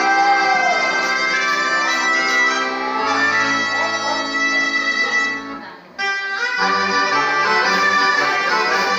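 Folk dance music played on accordion with a reedy wind melody; the tune fades and breaks off about five and a half seconds in, then starts again a moment later.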